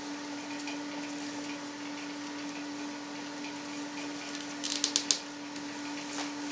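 Hands twisting and tying off a stuffed collagen-cased sausage with twine: soft handling noise, with a quick cluster of sharp clicks about five seconds in, over a steady low hum.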